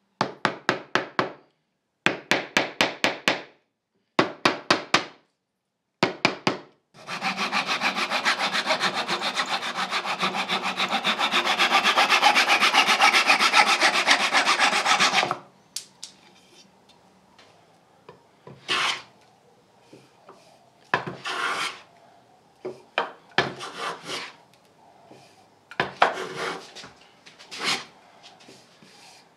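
A hammer taps wooden inlay strips into grooves in a partridge-wood panel, in four quick bursts of strikes. Then a hand saw trims the ends of the strips with rapid, steady strokes for about eight seconds. Near the end a hand plane takes about five separate strokes across the wood.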